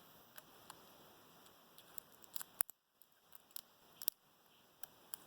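Scattered small, sharp clicks and taps of metal lock parts and tools being handled, the loudest about two and a half seconds in.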